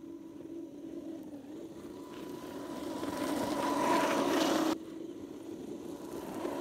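Traxxas UDR radio-controlled truck on a 6S battery: its brushless motor and drivetrain whine under throttle on snow. The whine grows louder, with a rushing hiss of snow thrown by the tyres as the truck passes close. It drops off sharply about three-quarters of the way through.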